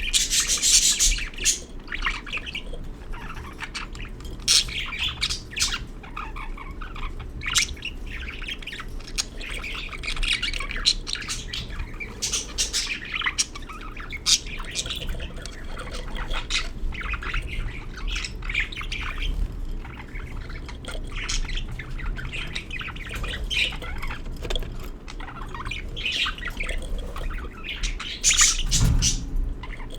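Budgerigars chirping and squawking in a dense run of short, high calls.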